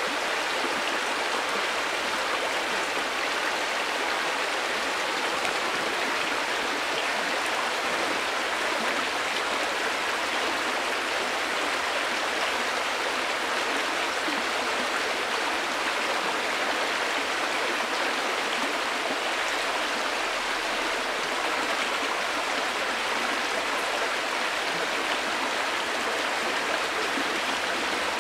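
River water flowing steadily: an even, continuous rushing with little deep rumble and no breaks.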